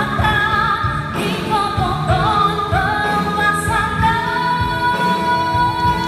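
A woman singing into a microphone over amplified backing music with a steady beat. She holds one long note from about four seconds in.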